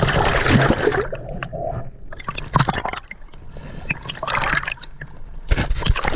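Water gurgling and sloshing, with bubbles, in uneven surges and short clicks, as heard by a camera in and around the sea.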